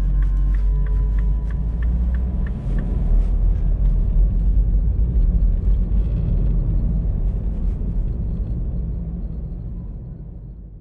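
Road and engine rumble heard inside a moving Mini's cabin, with a quick regular ticking during the first few seconds. The sound fades out near the end.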